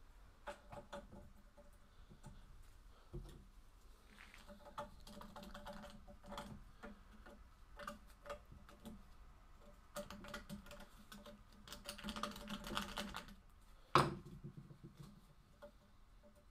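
Hand ratchet clicking in short runs as the bolts holding a power steering pump to the engine's cast accessory bracket are undone, with light metal clinks between runs and one sharp knock near the end, the loudest sound.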